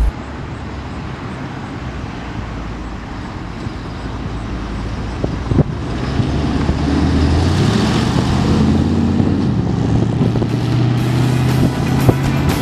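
Chevy 350 small-block V8 of a 1955 Chevy Bel Air, breathing through headers and glasspack dual exhausts, running as the car pulls out and drives past; the exhaust note grows louder as it approaches and is loudest from about seven to twelve seconds in.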